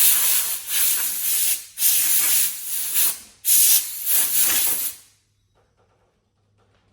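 Compressed air blowing in a series of loud hissing blasts with short pauses between them, stopping about five seconds in.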